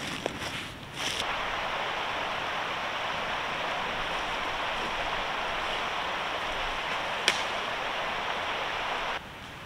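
A few clatters of dry sticks at the start, then a steady rushing hiss with one sharp snap of a dry branch about seven seconds in.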